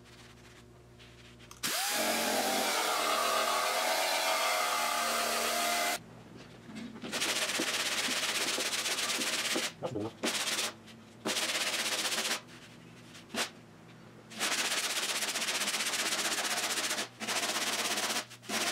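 Air-powered sander fitted with a metal shrinking disc, run in repeated bursts against the steel door skin to heat and shrink its high spots. It spins up with a rising whine about two seconds in, then runs in stretches of one to three seconds with short pauses between them.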